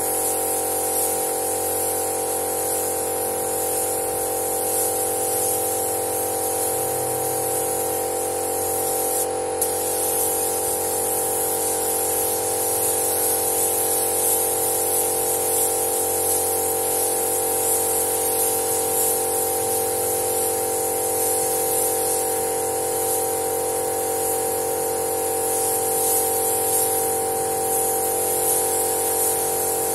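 Spray gun hissing steadily as it sprays red automotive paint, with a steady hum underneath. The hiss breaks off briefly about nine seconds in.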